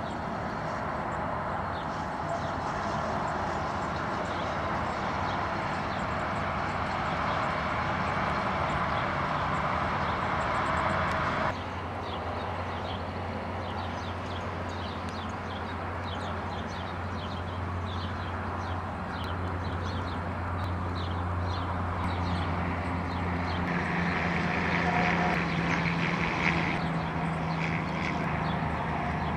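Steady outdoor evening ambience: a wash of noise with a low hum, like distant traffic, and faint small chirps throughout. The background changes abruptly about twelve seconds in.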